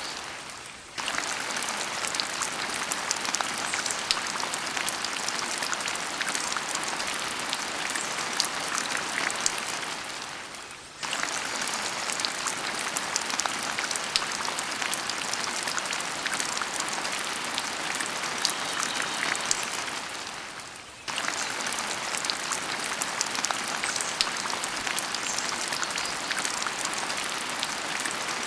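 Steady rain: a hiss full of small drop ticks. It fades down and cuts back in sharply about every ten seconds.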